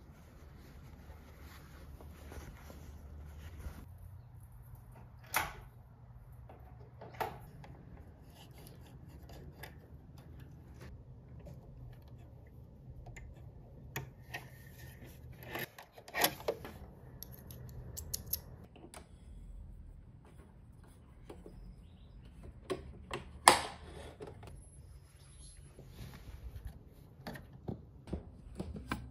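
Quiet handling sounds of denim fabric and a sewing machine being threaded: rustling and rubbing of cloth with a few scattered sharp clicks, the loudest about two-thirds of the way through, over a low steady room hum. The machine is not yet running.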